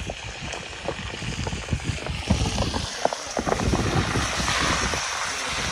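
Wind buffeting the microphone: a gusty, rumbling noise that starts suddenly and grows somewhat louder toward the middle.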